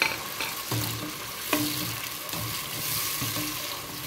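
Chopped tomato and pepper sizzling in hot palm oil with onions, a steady hiss, while a spoon stirs them round the pot and knocks against it several times.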